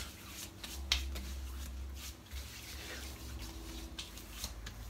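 Hands patting and rubbing splashed aftershave over a freshly shaved scalp: soft skin-rubbing with a few sharp wet pats.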